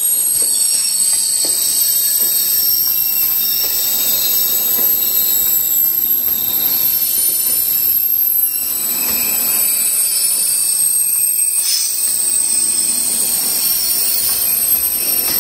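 A train rolling past with its wheels squealing on the rails: several steady, high-pitched squealing tones over the continuous rumble of the cars.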